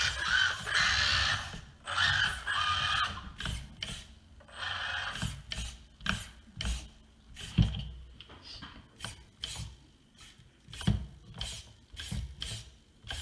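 Micro RC rock crawler's small electric drive and steering servos whirring and its tyres scrubbing in short bursts over the first few seconds, then a string of light clicks and taps as it is steered and handled.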